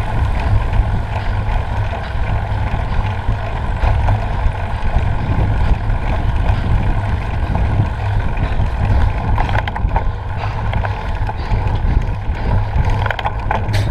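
Steady wind buffeting and rumble on a bike-mounted action camera's microphone as the bicycle climbs a paved mountain road, with a few faint clicks near the end.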